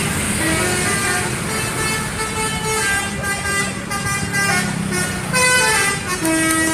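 Bus "telolet" musical horn playing a tune of short held notes that step up and down in pitch, over the low rumble of the bus engine running.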